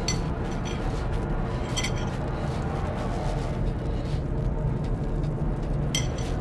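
Steady background music with a couple of bright chime-like strikes, about two seconds in and near the end.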